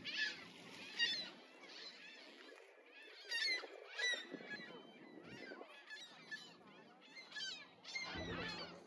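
A flock of waterbirds calling: many short, high calls overlapping, with louder calls about once a second and a low rumble near the end.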